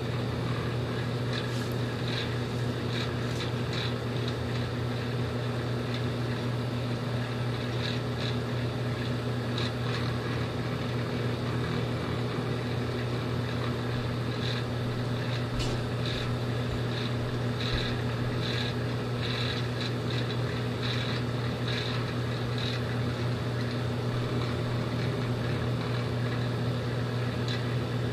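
Microwave oven running while heating cookies: a steady low electrical hum, with light crackles and ticks now and then.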